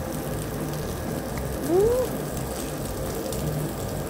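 Pork sizzling on a tabletop barbecue grill as a steady crackling hiss, with a short rising 'mmm' of pleasure from the person chewing about two seconds in.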